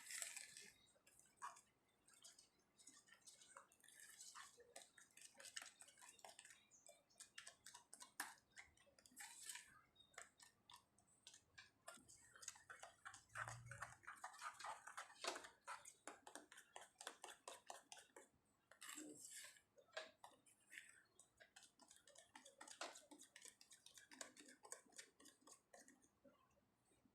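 Faint kitchen handling sounds: soft, irregular clicks and sticky taps, denser about halfway through, with one low thud.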